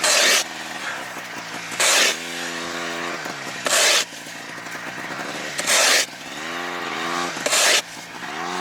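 Ice being chopped with an ice chisel: five loud, short crunching strikes about two seconds apart. An engine runs underneath, its pitch rising and falling.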